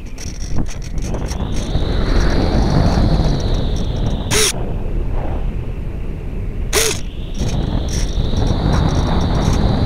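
Air rushing over the Phoenix 2000 RC glider's onboard camera and airframe as it glides with the motor off: a loud, steady wind noise that eases and swells, broken by two short sharp crackles about two and a half seconds apart.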